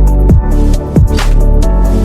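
Background electronic music with heavy bass and a steady beat.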